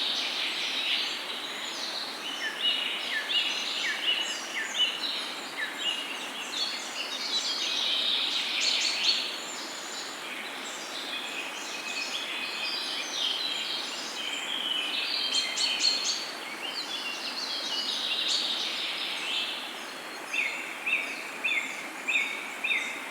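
A chorus of many birds chirping and singing over a steady outdoor background hiss. Near the end, one bird repeats a short call about twice a second.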